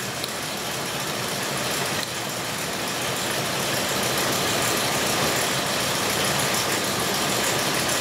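A 2002 Ford Explorer Sport Trac's 4.0-litre V6 idling rough with a misfire in number 6 cylinder. The spark plug wires are being pulled one at a time to find which cylinder is not contributing, and there is a small click about two seconds in.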